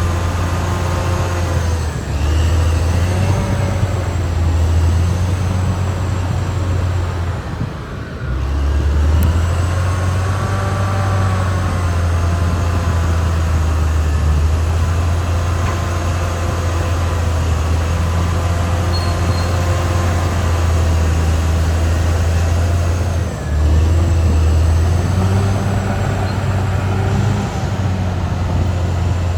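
Caterpillar D6R XL bulldozer working, its diesel engine running steadily with the pitch wavering up and down as the load changes. The engine eases off briefly about eight seconds in and again near the end.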